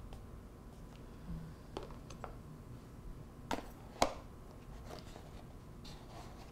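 Wooden chopsticks clicking and tapping against a paper takeout carton: a few short, sharp taps, the loudest about four seconds in.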